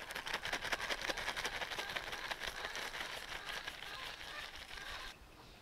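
Salt grains pouring from a packet into a hot metal kadai, a dense, rapid rattle of grains on the metal that stops suddenly about five seconds in. The salt is being laid as a bed for baking a cake in the pan.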